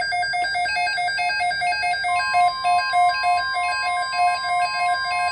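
Emergency weather alert tones: an electronic alarm beeping rapidly and evenly. About two seconds in, a steady higher tone joins it, signalling an incoming alert before the severe thunderstorm watch message is read.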